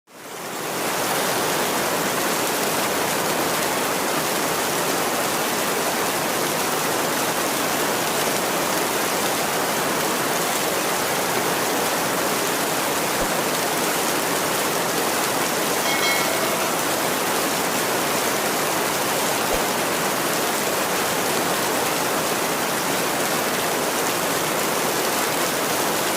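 Steady heavy rain: a dense, even hiss that fades in over the first second and then holds constant.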